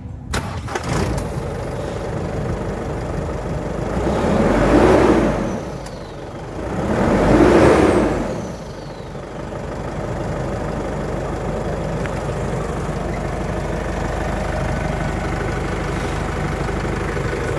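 Mazda BT-50 turbo-diesel engine starting up just after the beginning, revved twice in the middle, each rev rising and falling back, then idling steadily.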